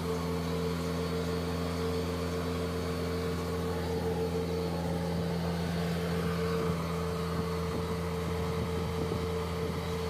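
Bobcat S130 skid steer's diesel engine running at a steady speed while the hydraulics raise and curl the bucket, testing the repaired bucket cylinder.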